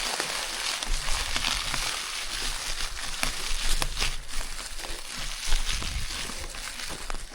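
Mountain bike rolling over a gravel forest road: a steady gravelly crunch from the tyres, with many small clicks and rattles, over a low rumble.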